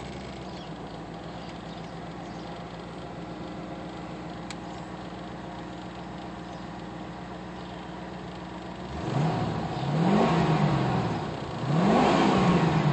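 1984 Corvette's 5.7-litre V8 idling steadily just after starting, then revved twice near the end, each rev rising in pitch and falling back to idle.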